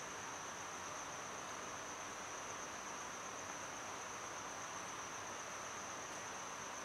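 Room tone: a steady faint hiss with one constant high-pitched whine.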